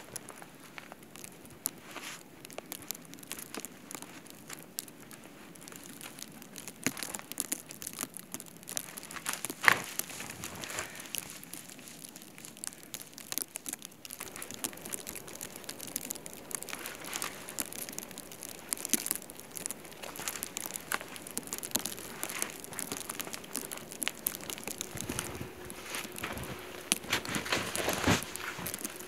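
Footsteps crunching through deep, fresh snow, with scattered small crackles and one sharper snap about ten seconds in. Near the end, gloved hands push and scoop into the snow.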